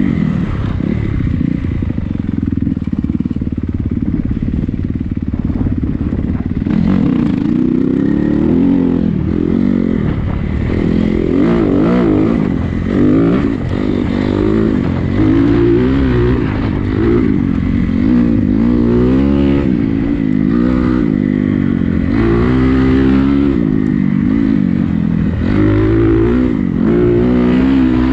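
Honda CRF250R dirt bike's single-cylinder four-stroke engine running under riding load. Its pitch holds fairly steady for the first several seconds, then rises and falls again and again as the throttle is opened and closed.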